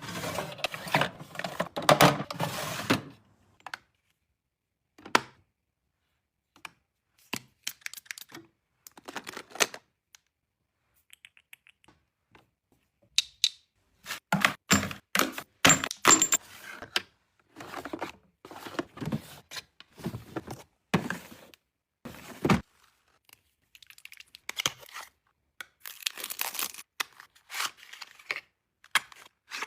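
Objects being handled close to the microphone, with quiet gaps between the sounds: a rustling, tearing stretch in the first three seconds, then scattered short clicks and knocks, thickening into a quick cluster about halfway through.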